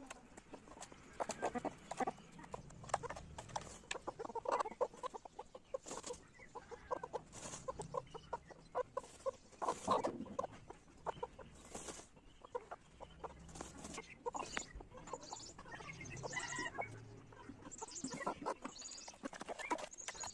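Chickens clucking in short, irregular clucks, mixed with small sharp clicks and taps.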